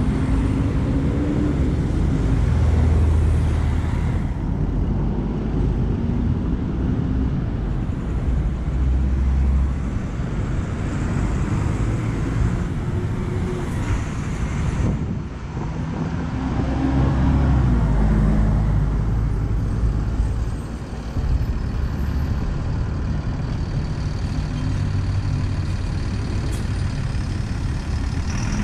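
City buses pulling into a kerbside stop, their diesel engines running low and steady over passing car traffic. A hiss comes about halfway through as an articulated bus brakes at the stop.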